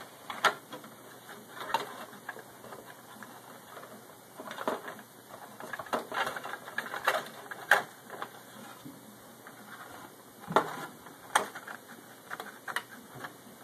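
Hard plastic parts clicking and knocking as an Xbox 360's plastic fan shroud is pushed and worked into place in the case, in about nine irregular sharp clicks.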